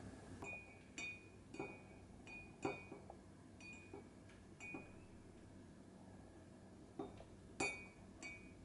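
A spoon stirring in a ceramic mug, clinking against the inside about a dozen times at an irregular pace, with a pause of a couple of seconds in the middle. Each clink rings briefly at the same high note.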